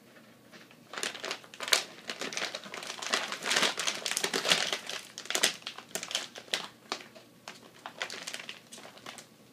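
Plastic cat-food bag crinkling as a cat rolls on it and claws at it. The crinkling starts about a second in, is loudest in the middle, and thins out near the end.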